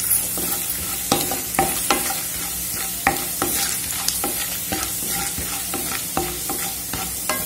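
Tempering of dals, cumin and dried red chillies sizzling in hot oil in a non-stick kadai. A plastic spatula stirs it, knocking and scraping against the pan irregularly, about once or twice a second.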